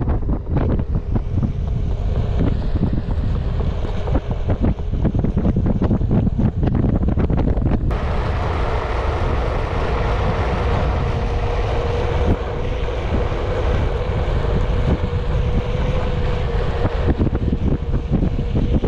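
Wind buffeting the microphone during a ride on a Onewheel electric board. About eight seconds in the rush becomes steadier, with a faint steady hum underneath.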